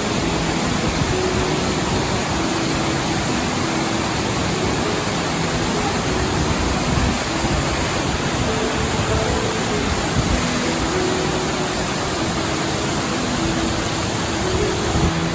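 Steady rushing of a waterfall, with soft music of slow, held notes beneath it.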